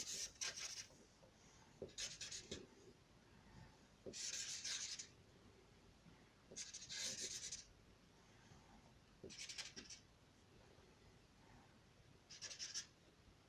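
A drawing tool scratching across paper in a series of separate line strokes, about six of them, some short and some nearly a second long, a couple of seconds apart.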